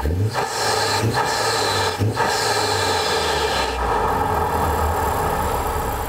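2023 Honda Civic Type R (FL5) turbocharged 2.0-litre four-cylinder engine running with the stock air filter in the factory airbox. It is blipped three times, about a second apart, then settles into a steady idle.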